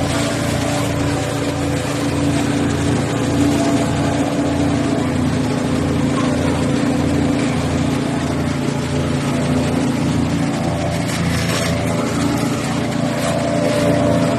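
Wood chipper's 13 HP gasoline engine running steadily.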